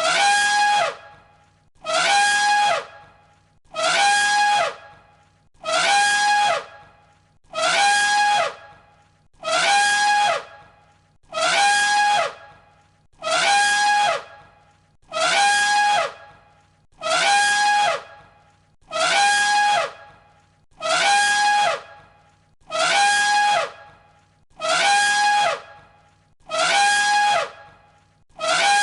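Elephant trumpeting: the same loud, blaring call of about a second, repeated identically about every two seconds as a looped sound effect.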